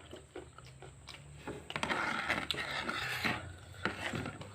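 Eating sounds: cutlery scraping and clinking against a dish, loudest for a couple of seconds in the middle, with small clicks of chewing around it.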